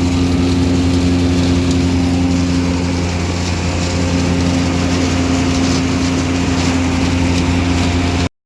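Farm tractor engine running at a steady speed, a constant low drone; it cuts off suddenly near the end.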